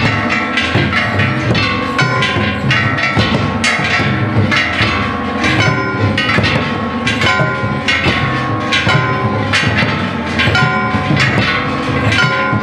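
Lion-dance accompaniment: a taiko drum and small hand gongs (kane) beaten rapidly and continuously, dense strikes with metallic ringing over the drum beats.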